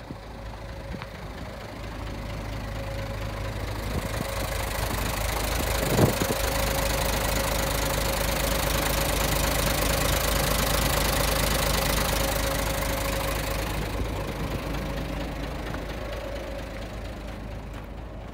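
Mitsubishi 6D22 inline-six diesel engine of an Aero Midi MP618 bus idling steadily, louder and brighter close to the open engine bay and fading again toward the end. A single sharp knock sounds about six seconds in.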